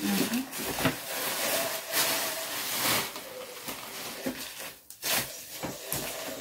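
Plastic bag and bubble wrap rustling and crinkling irregularly as a parcel is unwrapped by hand.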